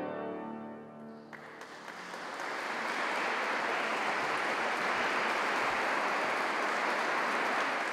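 Final chord of a pipe organ dying away in a reverberant stone church, followed about a second in by audience applause that builds and then holds steady.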